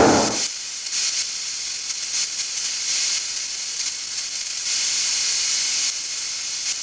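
Compressed-air paint spray gun hissing in irregular bursts of different lengths while laying a second coat of grey paint. A loud machine noise, the air compressor, dies away in the first half second.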